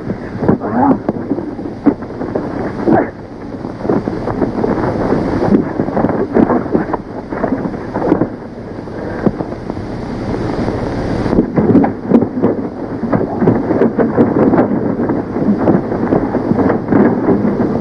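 Fistfight sounds: repeated sharp punch thuds and scuffling of bodies on grass, over the heavy hiss of an old film soundtrack.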